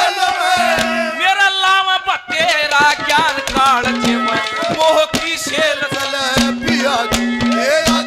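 Live Haryanvi ragni music: an ornamented melody over regular hand-drum beats, with a steady low drone note that comes and goes.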